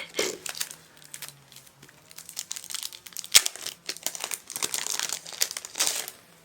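Packaging crinkling and rustling as items from a Blu-ray box set are handled and unwrapped, in irregular bursts, with one sharp click about halfway through.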